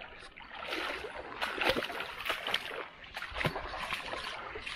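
Irregular splashing and rustling, a rapid string of short sharp noises, as a hooked flathead is lifted out of shallow water and swung onto the bank.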